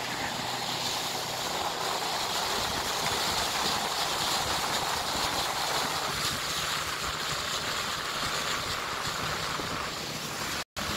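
Small boat's outboard motor running steadily at speed, with water rushing past the hull. The sound cuts out for a moment near the end.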